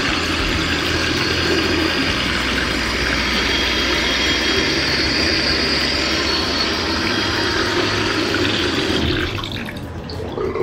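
Water pouring from a waterfall-spout mixer tap into a ceramic basin, a steady splashing rush that dies down about nine seconds in.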